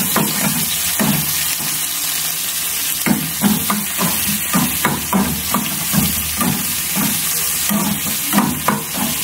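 Sliced onions and green chillies sizzling in hot oil in a steel kadai, with a metal spoon scraping and knocking against the pan in quick repeated strokes as they are stirred.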